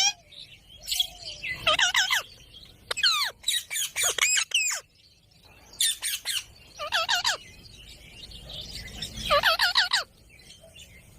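Ringneck parrot calling in about four bouts of quick, warbling squawks, with short pauses between them.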